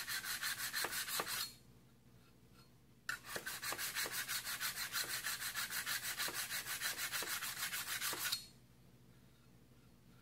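A diamond hone rubbed in quick back-and-forth strokes along the edge of a carbon-steel card scraper, taking the burr off the edge. It rasps in two bouts: a short one that stops about a second and a half in, then after a brief pause a longer one that stops about two seconds before the end.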